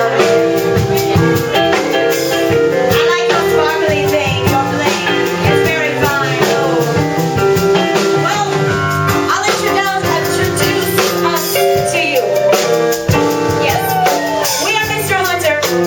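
Band music with drums keeping a regular beat under held notes and melody lines that slide in pitch.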